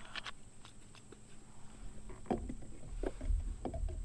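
Light clicks, then several dull knocks in the second half with a low rumble beneath them: gear being handled and bumped in a small fishing boat.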